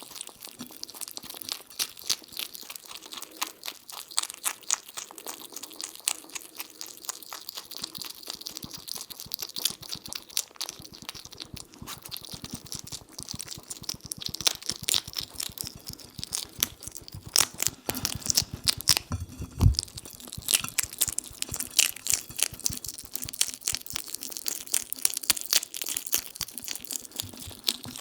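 European hedgehog chewing and chomping, a rapid run of wet clicks and crunches, with a louder burst about two-thirds of the way through.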